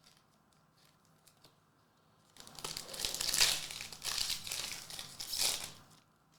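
Foil trading-card pack wrapper being torn open and crinkled, a crackly rustle that starts about two and a half seconds in and lasts a few seconds.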